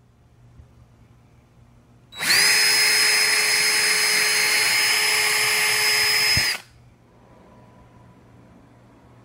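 Power drill with a twist bit boring a hole in PVC board. The motor spins up about two seconds in, runs at a steady pitch for about four seconds, then stops.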